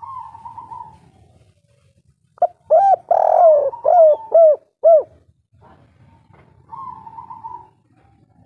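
A spotted dove (tekukur) of the 'kuk 3' song type cooing. A loud run of about six rising-and-falling coos comes in the middle, with a fainter, higher, rough note at the start and another near the end.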